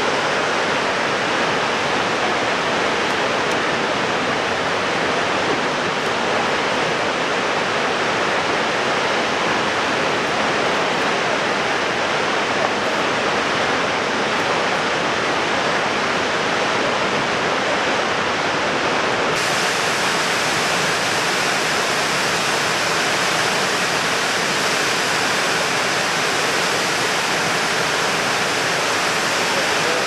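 Niagara Falls: the steady rushing noise of a huge volume of falling water, without a break, turning a little brighter and hissier about two-thirds of the way through.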